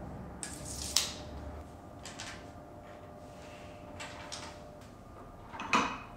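Handling sounds at a workbench: a few short clicks and light knocks from a steel tape measure and a wooden drawer box being handled. The loudest knock comes near the end.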